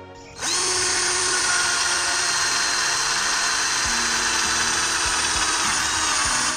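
Electric drill with a step drill bit boring a hole through a small piece of plywood: the motor spins up about half a second in, then runs steadily with a high whine while cutting, and cuts off suddenly near the end.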